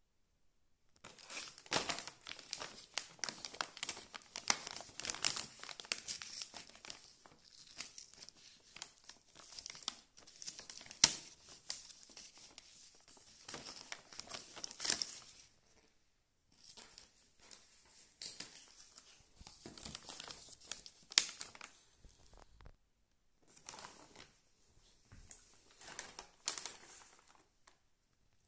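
Plastic packaging crinkling and crackling as a bag of dried lamb-ear dog treats is opened and handled, in three stretches of rustling with two short pauses.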